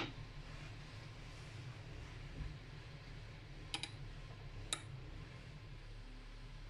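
Two light clicks about a second apart, a table knife knocking against a ceramic plate, over a low steady hum.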